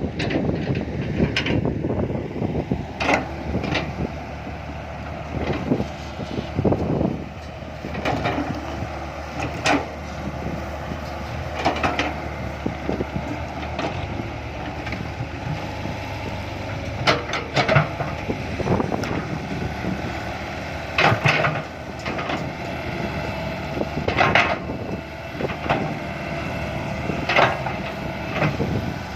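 Komatsu PC120-5 hydraulic excavator's diesel engine running steadily under load while it digs and loads soil into a dump truck, with sharp knocks and clanks every few seconds from the bucket and soil.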